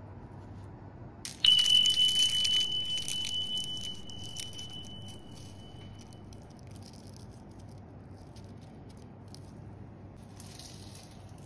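Crisp baked phyllo pastry crackling as a roll is pulled apart by hand, the crackles dense at first and then thinning out. A bright bell-like chime starts with the crackling about a second and a half in and rings away over about five seconds. A short hiss comes near the end.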